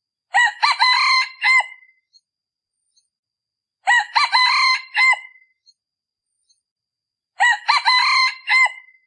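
A male decoy junglefowl rooster crowing three times, each crow short and clipped, about 3.5 seconds apart. The crows are identical in pattern, like a looped recording used to lure wild junglefowl.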